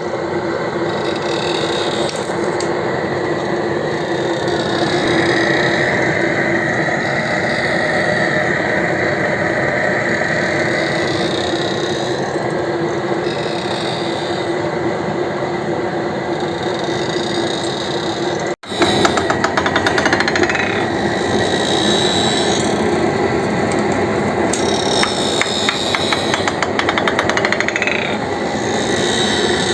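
Woodworking machinery running and cutting wood: a loud, steady mechanical noise with a held low hum. The sound cuts out for an instant about two-thirds of the way in, then a similar machine noise comes back with rapid chattering.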